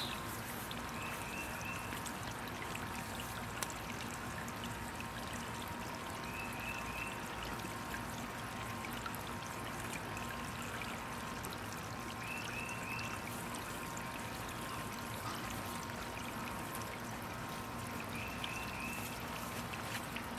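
Water spraying steadily from an octopus sprinkler splash mat's fountain and falling onto the mat.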